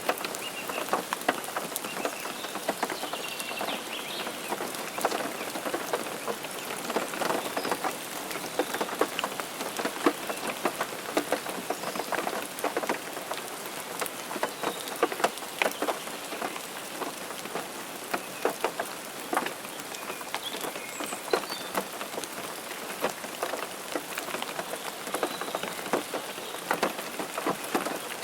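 Steady rain, with many close drops striking sharply and unevenly over a continuous hiss.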